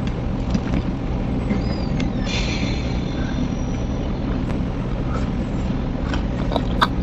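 A person eating rice by hand and chewing, heard as faint scattered clicks and smacks over a steady low rumble. A brief hissing rustle comes about two seconds in.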